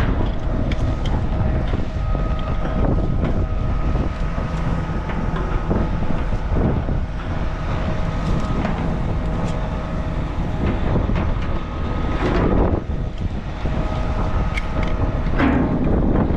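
Wind buffeting the microphone over a steady mechanical hum with a faint whine, with a couple of short knocks late on.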